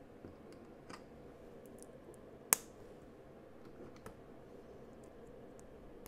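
Plastic LEGO pieces clicking and tapping as they are handled and pressed onto a baseplate, with one sharp, much louder click about two and a half seconds in.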